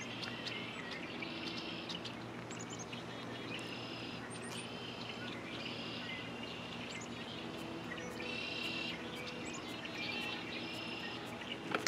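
Small birds chirping and calling over and over, short high calls in quick clusters, over a steady low hum.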